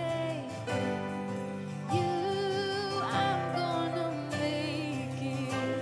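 Live worship band playing a slow song, with a woman singing the lead vocal over guitars and keyboard.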